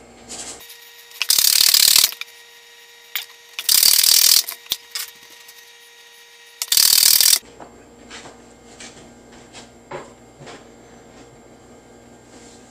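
Salt being sprinkled from its container over sliced cucumbers in a bowl: three short hissing bursts, each under a second and two to three seconds apart, followed by a few faint light clicks.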